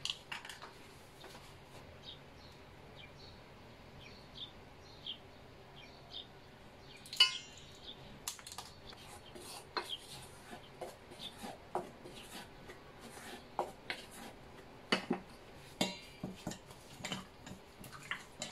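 Utensils tapping and scraping against stainless steel mixing bowls while stirring. Sparse light clicks come first, then one sharp ringing clang about seven seconds in, followed by a busier run of irregular taps and knocks.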